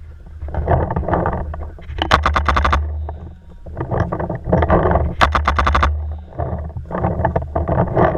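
A paintball marker firing two rapid strings of shots, about a dozen a second, a couple of seconds in and again about five seconds in. Between them comes heavy, rhythmic breathing close to the microphone.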